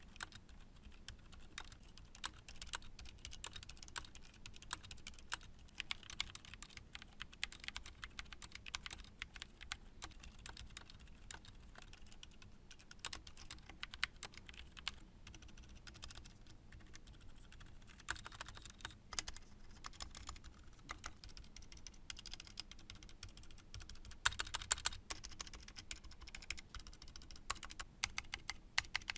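Typing on a full mechanical keyboard fitted with GamaKay silent pre-lubed switches: a fast, continuous run of soft, muted keystrokes, with a louder flurry of keys late on.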